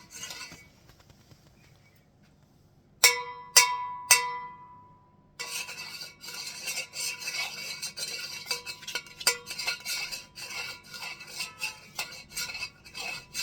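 Foley sound effect of metal kitchenware: a metal tea pan is struck three times in quick succession, and each hit rings. From about five seconds in, a spoon clinks and scrapes steadily against the metal, as in stirring tea.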